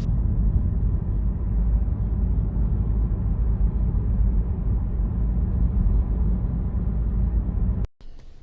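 Steady low road and engine rumble heard from inside a moving car, cutting off abruptly near the end.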